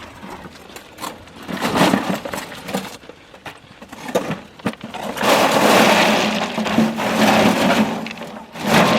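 Rocks and gravel clattering and sliding, as if tipped or thrown into place. There is a short burst about two seconds in and a longer, louder spell of clatter from about halfway to near the end.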